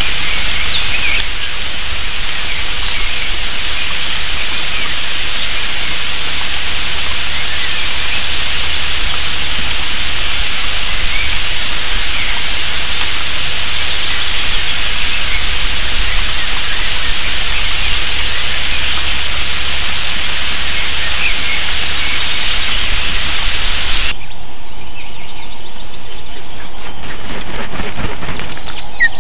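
Steady hiss of rain on an outdoor nest-camera microphone, with a few faint bird chirps through it. The hiss drops away about five seconds before the end, leaving quieter background with bird chirps.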